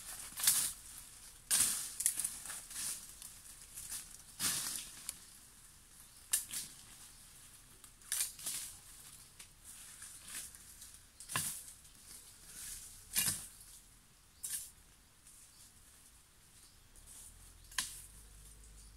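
Footsteps crunching and rustling through dry leaf litter and undergrowth, in irregular steps a second or two apart that grow sparser near the end.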